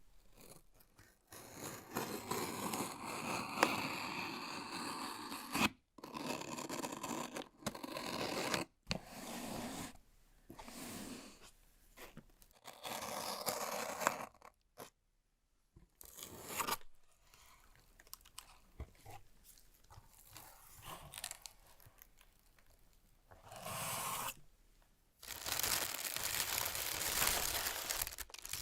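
Phone packaging being torn open and handled: bursts of tearing and crinkling of paper and plastic lasting a few seconds each, with short pauses between them.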